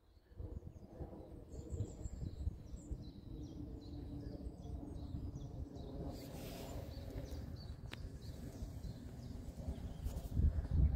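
Airbus A320-214's CFM56-5B jet engines rumbling overhead on descent: a steady low drone with faint tones that builds over the first couple of seconds, then holds. Small birds chirp during the first half, and a few low bumps hit the microphone near the end.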